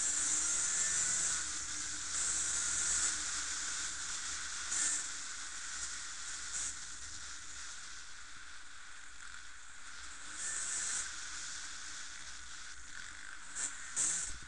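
Steady hiss of wind on a small camera microphone, rising in brief gusts, with the faint drone of distant enduro motorcycles under it.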